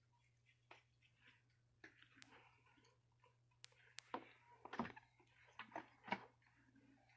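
Near silence: faint scattered ticks and clicks, bunched a little past the middle, over a low steady hum.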